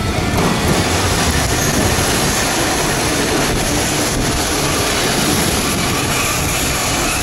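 Keifuku Randen (Kyoto) tram car running in along the platform close by: steady, loud rail running noise of wheels and motors on the track.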